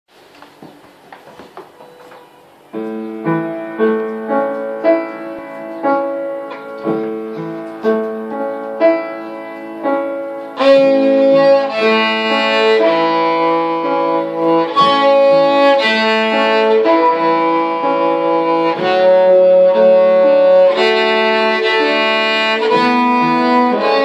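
Cello playing a slow, flowing melody with piano accompaniment. The first seconds are faint, then piano-like notes that fade after each stroke begin. About ten seconds in, the cello's held bowed notes come in louder over them.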